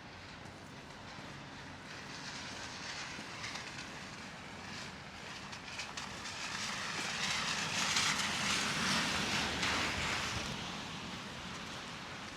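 A vehicle driving past: its tyre and engine noise swells to a peak about eight seconds in, then fades away.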